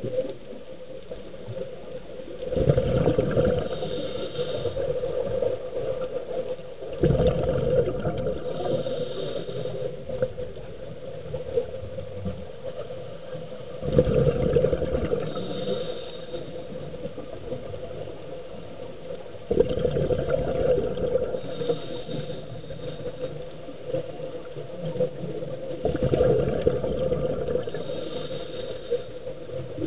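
Scuba regulator breathing heard underwater: five slow breath cycles about six seconds apart, each a surge of bubbling and rushing with a lighter hiss following, over a steady underwater hum.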